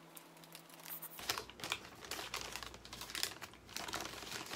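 A paper Shake Shake Fries bag crinkling and rustling as it is opened and handled together with a cardboard fries carton, starting about a second in as a run of small crackles and taps.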